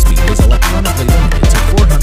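Background electronic music with a heavy, steady beat.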